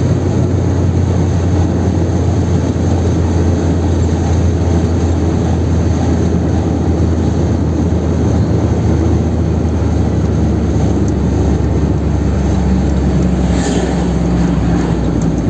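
Chevrolet Kadett 1.8's naturally aspirated engine and road noise, a steady low drone while the car cruises on the highway.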